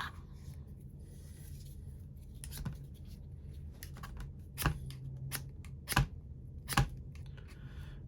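The spine of a multitool's saw blade scraped down a ferro rod fire striker in short, sharp strokes: a faint scrape about two and a half seconds in, then three louder strikes about a second apart in the second half.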